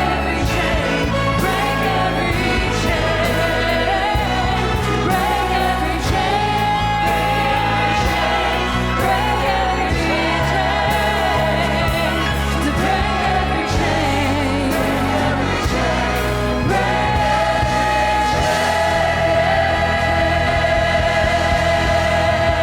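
Church choir singing a worship song with orchestra accompaniment over a steady bass line, with long held notes toward the end.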